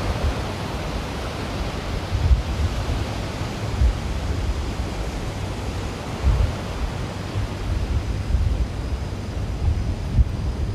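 Strong wind buffeting the microphone in irregular gusts, over a steady rush of sea surf breaking on the beach.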